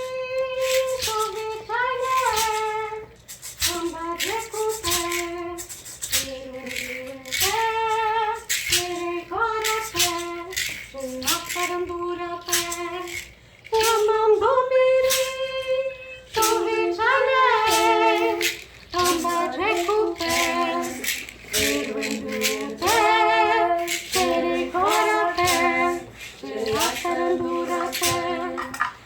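A woman's voice singing long, sliding phrases with vibrato, with pauses between phrases, over sharp percussive clicks.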